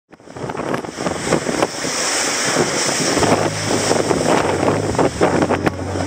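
Heavy ocean surf breaking and foaming against concrete breakwater blocks, with strong wind buffeting the microphone.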